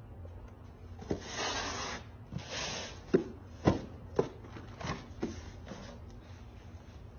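Cardboard packages being handled on a doorstep: two short stretches of scraping, then a run of about five sharp knocks.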